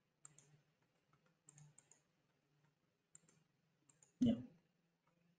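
Faint, scattered computer mouse clicks, several in quick pairs, with a brief louder low sound about four seconds in.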